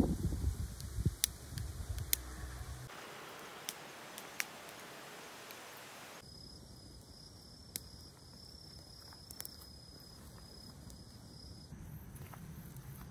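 Quiet outdoor ambience broken into short cuts, with a few scattered sharp clicks or pops and, through the middle stretch, a steady high trill.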